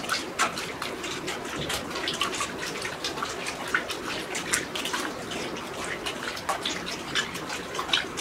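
Wet squelching and squishing of raw pork intestine being kneaded and rubbed by hand in a steel bowl while it is cleaned with yellow powder: a fast, irregular run of small splats and smacks.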